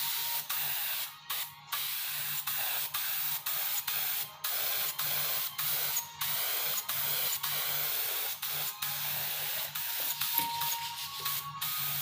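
Air spray gun spraying tinted wood finish onto timber to cover marks: a steady hiss broken by many brief gaps.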